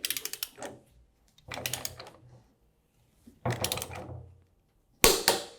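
Ratchet of a torque wrench clicking in short bursts as the rotor jam nut is tightened toward its torque setting. A sharp, loud metallic knock comes near the end.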